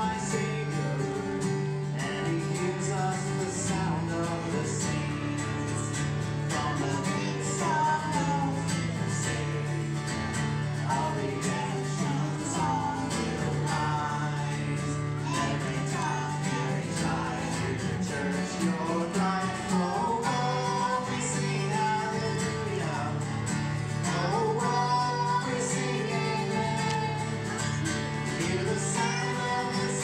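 Acoustic guitar strummed to accompany a man singing, a boy's voice joining in as a duet through a microphone.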